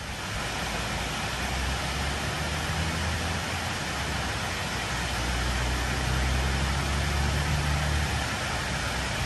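Water pouring over a low dam spillway in a steady rush, with a low hum underneath that grows stronger from about five to eight seconds in.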